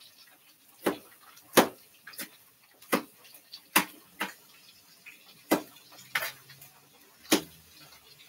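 Kitchen knife chopping bell peppers, striking the cutting board in single sharp knocks at an irregular pace of roughly one a second.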